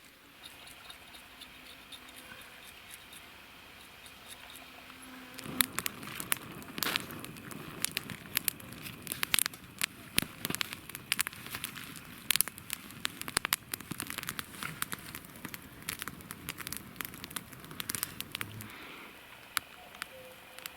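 Campfire crackling, with irregular sharp pops and snaps that start about five seconds in after a quieter stretch.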